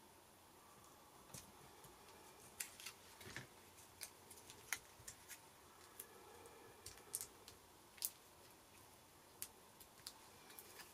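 Faint, irregular small clicks and light paper handling noises as die-cut cardstock leaves are picked up and pressed onto a card front by hand.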